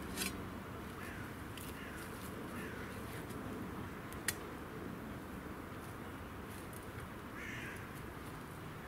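Birds calling in the background, with a few short falling calls in the first three seconds and another near the end. A single sharp click about four seconds in.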